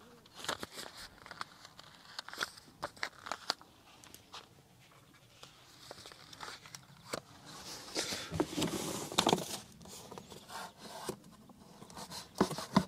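Light handling noises: a paper sheet rustling, with scattered small clicks and rubs, and a longer stretch of rustling about eight seconds in.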